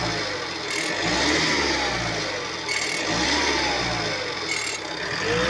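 Tata Yodha 1700's 2.2-litre diesel engine blipped repeatedly, about every two seconds, each rev rising quickly and then falling away slowly. It makes a noise as the throttle is released, which turns out to come from a cracked metal shield plate on the gearbox, first suspected to be the turbo.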